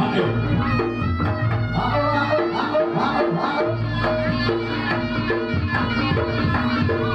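Reog Ponorogo gamelan accompaniment for a Bujangganong dance: a reedy slompret shawm melody over drums and a steadily repeating pattern of gong-chime notes.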